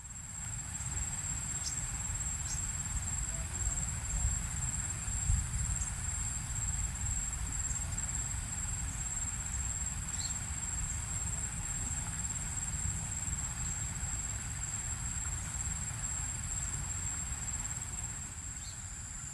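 Steady, high-pitched insect chorus ringing evenly, over a low rumble, with a few faint ticks.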